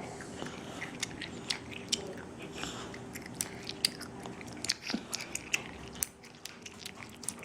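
A three-year-old chewing gum: irregular wet smacking and clicking of the mouth, several small clicks a second.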